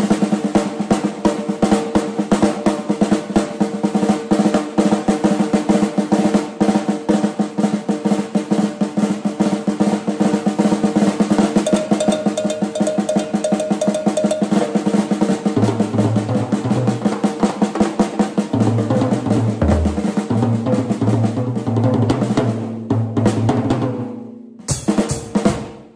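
Drum kit fitted with Remo Skyntone heads played in a fast, busy solo: rapid tom and snare strokes, snare wires off and hi-hat closed, with the toms run without bottom heads. Bass drum thumps join about halfway through, and the playing stops shortly before the end.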